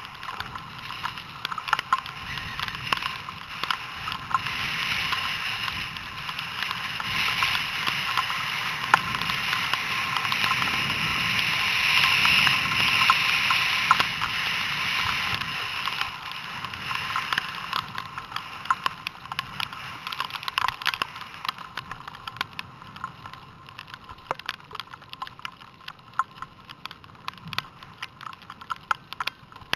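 Skis sliding and scraping over snow, heard from a helmet camera: a hiss that builds to its loudest about halfway through and then fades, with scattered clicks and knocks.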